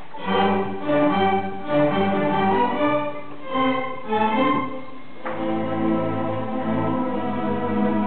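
School string orchestra of violins and cellos playing: a run of short, separate bowed chords with brief breaks, then held, sustained chords from about five seconds in.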